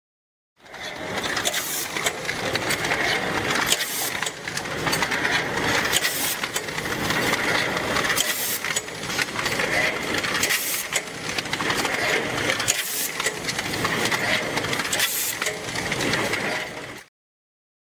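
Rotary premade-pouch packing machine running at its filling station: a steady mechanical clatter and hiss, with a sharper clack about every two seconds. It cuts off abruptly near the end.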